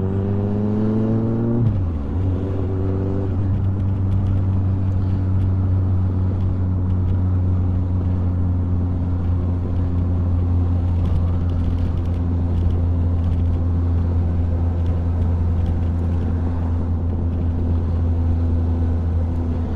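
Kawasaki sport bike's inline-four engine under way: its pitch rises as it accelerates, drops at a gear change about two seconds in, then holds steady as it cruises.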